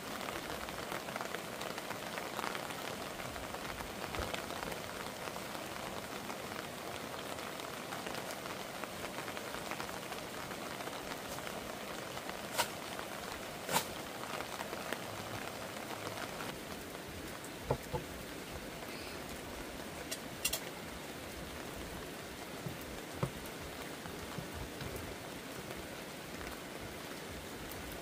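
Steady rain falling, with a few sharp knocks standing out now and then.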